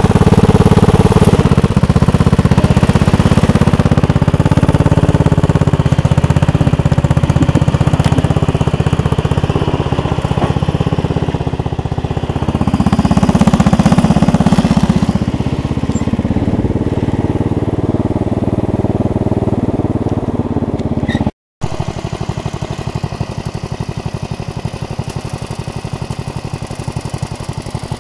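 Roper garden tractor's engine running loud as it pulls through mud, swelling and rising in pitch about thirteen seconds in. After a break about twenty-one seconds in, the engine runs more quietly at a steady, even beat.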